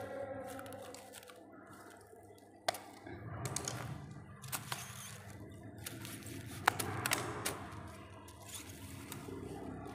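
Rustling and crackling of plastic artificial grass panels being handled and joined by hand, with scattered sharp clicks, the loudest about three seconds in and again near seven seconds.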